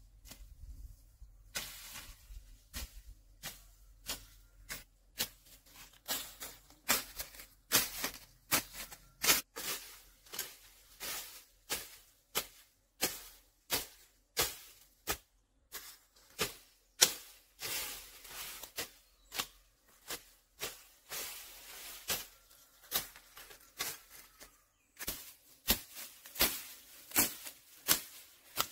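A blade chopping bamboo: a long run of sharp strokes at an irregular pace of about one to two a second, each followed by a short rustle. The strokes are softer for the first few seconds and pause briefly near the end.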